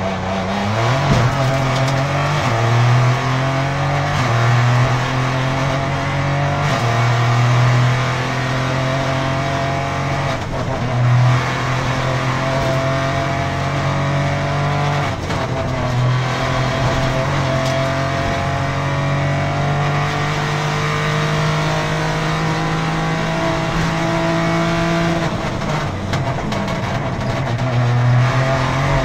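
Peugeot 208 R4 rally car's engine heard from inside the cabin, pulling hard under full throttle. The revs climb steadily and fall back at each gear change, several times over, with road and tyre noise underneath.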